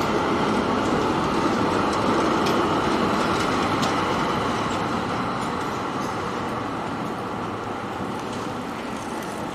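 Articulated trams rolling past close by on street track, one after the other: a steady rumble of wheels on rail that fades as they move away, from about halfway through.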